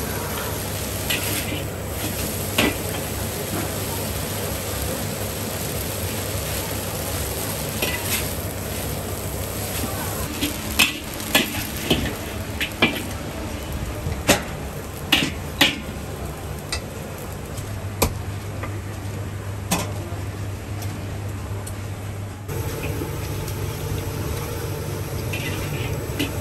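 Metal spatula stirring and scraping plain white rice vermicelli in a wok as it is dry stir-fried for wok hei, with sharp clanks of the spatula against the wok, most of them between about ten and twenty seconds in. Under it runs a steady background noise.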